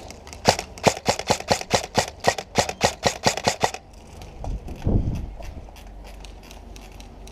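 Airsoft rifle firing a quick string of semi-automatic shots, about five a second for some three seconds, followed by a single dull thump.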